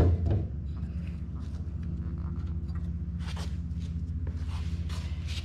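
A clunk right at the start, then a few light footsteps and handling sounds over a steady low hum.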